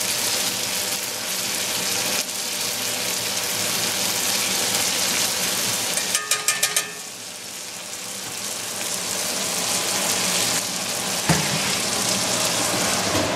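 Ribeye steak sizzling in butter in a cast-iron skillet with onions and garlic. About six seconds in, metal tongs click several times in quick succession against the pan, and a single knock comes near the end.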